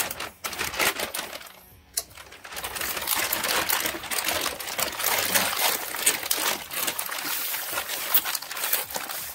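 Thin plastic bag crinkling and rustling as it is handled and pulled back from a paper-wrapped part. It is a nearly continuous crackle of small clicks that picks up about two seconds in.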